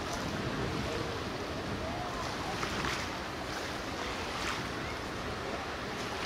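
Steady rush of water and wind heard aboard a catamaran ferry under way, with no sudden events.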